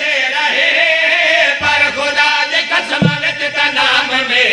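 A group of men's voices chanting a line of a devotional qasida together, several voices overlapping in a sustained wavering chorus.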